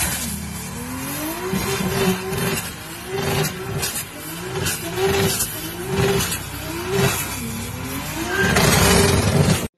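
Toyota Supra MK IV's 2JZ straight-six engine revved up and down over and over, the pitch climbing and dropping back about once a second. The sound cuts off abruptly near the end.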